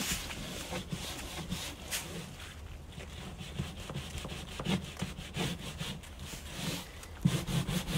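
Hand brush scrubbing stripper-soaked textured cedar weatherboard in quick back-and-forth strokes, the bristles rasping over the wood as the old tinted acrylic finish is worked out of the grain. The strokes get louder and faster about seven seconds in.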